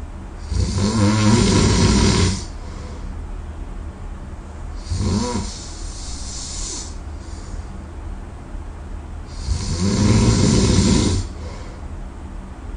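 A person snoring loudly in sleep: two long snores about nine seconds apart, with a shorter, fainter snore between them.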